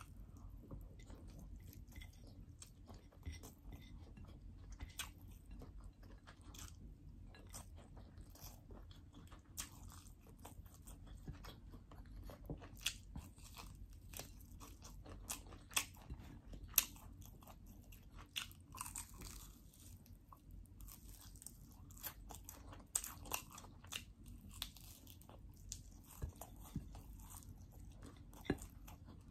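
A person chewing and biting fried chicken and fried rice eaten by hand, with irregular crunches and clicks throughout.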